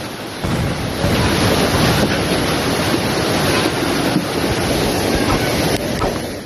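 Floodwater rushing in a steady, loud wash of water noise, with wind on the microphone. The sound swells about half a second in.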